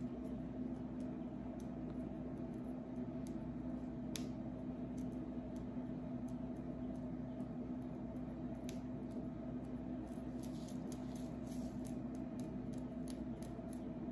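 Fingernails scratching and picking at a flaky scalp through the hair: soft, crackly scratches and small sharp clicks that come faster near the end, over a steady low hum.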